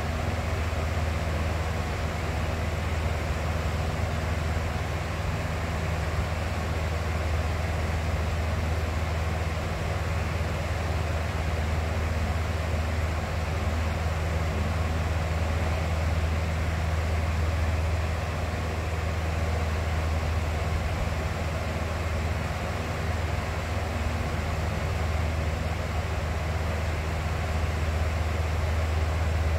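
Box fan running steadily: a continuous rush of air over a low, even motor hum.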